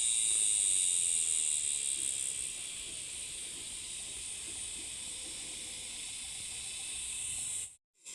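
Steady, high-pitched drone of an insect chorus, a little quieter after a couple of seconds, cutting off suddenly near the end.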